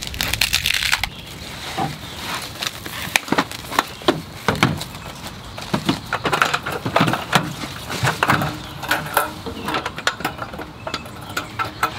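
Plastic and foam packaging crinkling and rustling as it is pulled off an aluminum roll-top table's slatted top, with scattered clicks and light clatter as the slats move.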